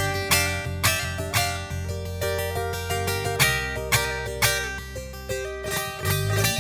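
Instrumental passage of a Turkish folk song with a bağlama, a long-necked plucked lute, playing the lead over sustained low bass notes and band accompaniment. Sharp plucked notes come about twice a second and ring on.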